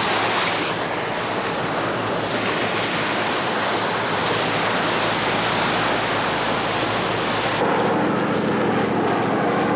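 Steady rushing noise. About 7.5 seconds in it gives way to the fast rhythmic chop of a Sea King helicopter's rotor passing overhead.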